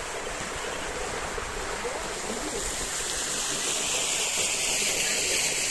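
Steady rush of flowing water from a mountain river and a waterfall, growing louder and hissier through the second half.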